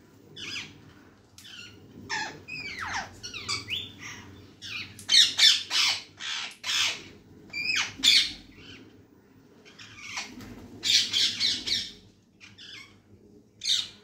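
Parrots calling with repeated squawks that come in clusters, mixed with a few shorter gliding calls near the start.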